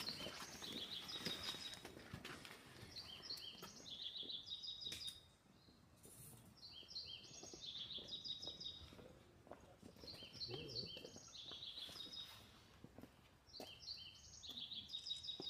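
A small bird singing a short phrase of quick, stepped high notes, repeated four times about three and a half seconds apart, faint over steady outdoor background noise.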